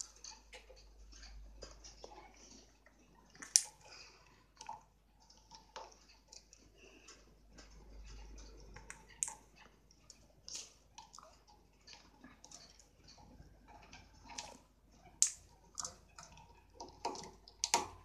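Irregular sharp clicks and taps from pet parrots in a wire cage, the loudest about three and a half seconds in and again near the end.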